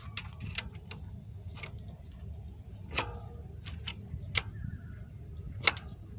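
Spanner tightening the rear wheel's axle nuts: a string of irregular metal clicks and ticks, with two sharper knocks about three seconds in and near the end.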